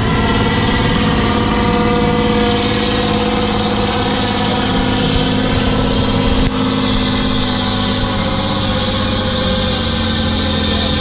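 Tatra 813 8x8 truck's diesel engine running hard under load as the truck climbs a steep dirt slope; a loud, steady engine note.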